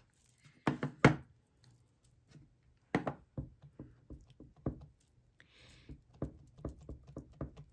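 Clear acrylic stamp block, with a rubber stamp mounted on it, tapped repeatedly against an ink pad to ink the stamp: a series of short taps and knocks, a couple of sharper ones in the first second, then quicker, lighter taps.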